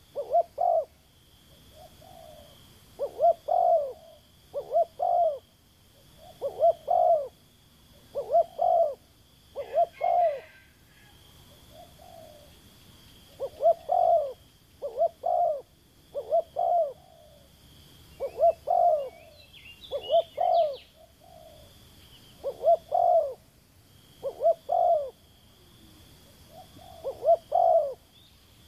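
Spotted dove cooing over and over: a low phrase of two or three arching coos every second or two, with softer single coos between phrases.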